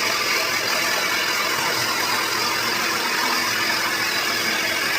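Handheld hair dryer running at a steady blow, a loud even rush of air with a faint hum under it, as a section of hair is drawn through a brush in its airflow.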